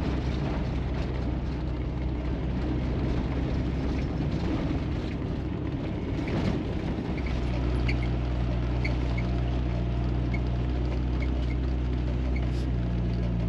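Four-wheel drive running along a dirt road, heard from inside the cab: a steady engine drone with tyre and road noise and small knocks and rattles. The engine note settles into a firmer, steadier hum about halfway through.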